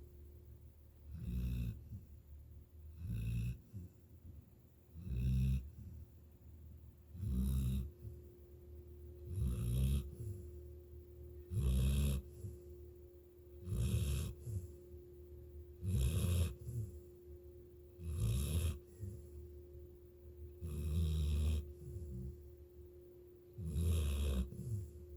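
Snoring in a slow, regular rhythm, a rough snore about every two seconds. A faint steady hum runs underneath.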